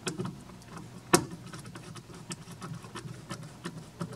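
Small clicks and ticks of a wire being pushed into a plastic DIN-rail screw terminal block and handled, with one sharper click about a second in.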